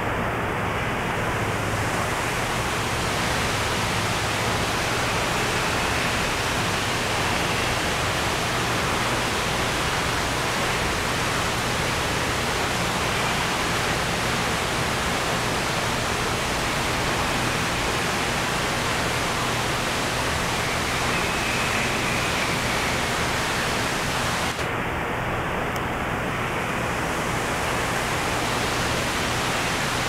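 Steady rushing noise with a faint low hum underneath, even and unbroken throughout; no calls from the storks.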